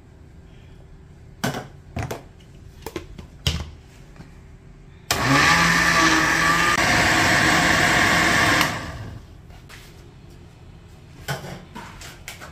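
A few handling knocks, then a countertop blender starts about five seconds in. It runs at full speed for about three and a half seconds, chopping chunks of apple and onion in fish sauce for kimchi seasoning, and cuts off. More knocks follow near the end.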